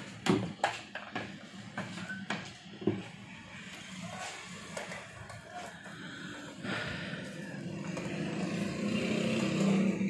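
Plastic electric kettle and its power base being handled and set down on a desk: a run of sharp knocks and clicks in the first few seconds. Then a steady hiss and low hum grows gradually louder.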